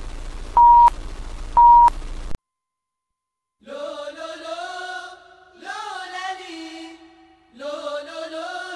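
Television static hiss with two loud steady beeps about a second apart, cutting off suddenly about two and a half seconds in. After a second of silence a chant-like vocal begins in long, drawn-out sung phrases.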